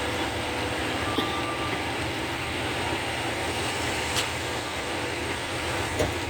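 Road vehicle noise: a steady low rumble with hiss, with a few faint clicks.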